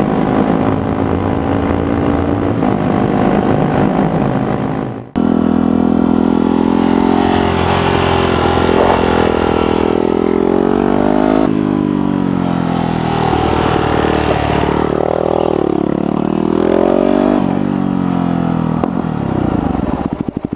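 Yamaha WR250X supermoto's single-cylinder engine running under way, its revs rising and falling as it is ridden, with wind noise over it. The sound breaks off for an instant about five seconds in. Near the end the engine settles to a slow, even idle.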